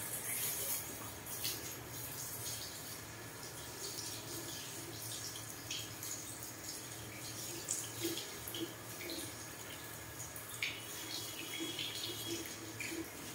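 Water running from a shampoo bowl's handheld sprayer onto a person's hair as it is rinsed: a steady hiss with small splashes.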